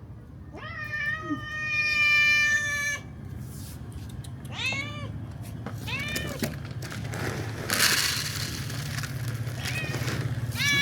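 Stray cats meowing for food: one long, drawn-out meow about a second in, then several short meows. A brief noisy rush near the middle, over a steady low hum.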